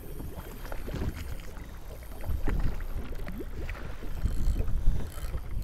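Wind rumbling and buffeting on the microphone aboard a small boat at sea, with irregular splashing and knocking of water against the boat.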